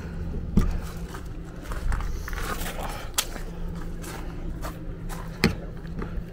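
Handling noises: three sharp clicks or knocks a few seconds apart, with scraping and footsteps, over a steady low hum.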